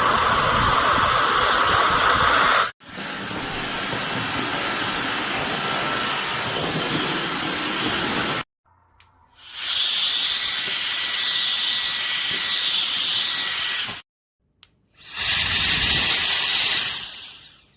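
CCV cordless electric air duster running, its small high-speed fan spinning up and blowing a loud, steady rush of air. It sounds in four separate runs, each cut off abruptly, with a faint whine from the motor under the airflow.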